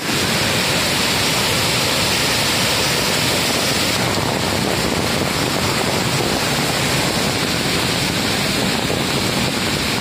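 Steady rush of water: a rain-swollen mountain stream running in white water, and heavy rain falling.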